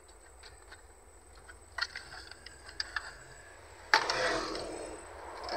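Metal-cased car stereo head unit being handled and slid into the dashboard slot: light clicks, then a sharp knock about four seconds in followed by a second of scraping, and more scraping near the end.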